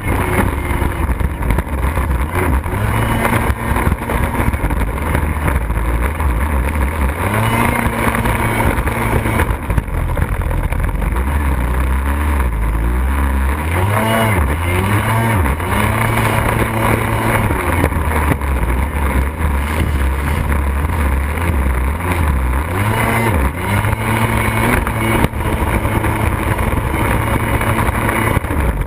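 Kawasaki X2 jet ski's two-stroke 750 engine with an expansion pipe, running hard under way. The revs rise and drop several times, with a quick run of throttle blips in the middle, over a steady rush of noise.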